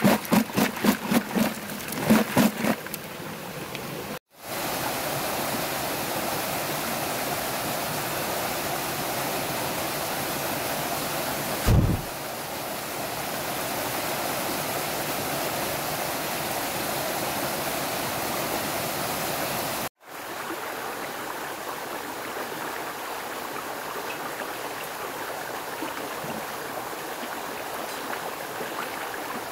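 Forest stream running steadily, cut twice in editing. It opens with a quick run of rhythmic knocking strokes for the first few seconds, and a single low thump comes near the middle.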